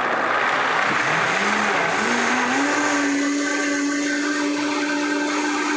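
Vitamix blender motor switched on and spinning up to high speed, blending soybeans and water into soy milk. A noisy whirring whose pitch climbs over the first few seconds, then holds steady.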